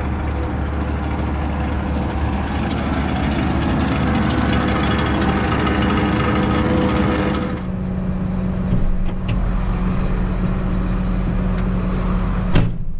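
Farm tractor engine running steadily. About seven and a half seconds in the hissy upper part of the noise drops away, leaving a steadier low hum, and a single sharp click comes near the end.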